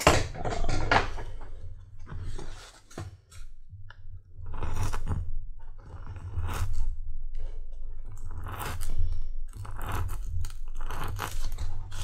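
A round knife slicing through veg-tan leather in a series of short, irregularly spaced cuts, rounding off the end of a belt strap.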